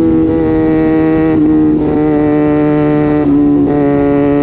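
Small-displacement parallel-twin sport motorcycle engine with an aftermarket exhaust, running at high, nearly steady revs. The sound dips briefly twice, about a second and a half in and again past three seconds, and the pitch sits a little lower after each dip.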